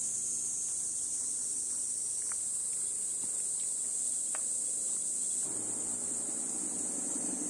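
Steady high-pitched chorus of insects, with two brief faint chirps about two and four seconds in.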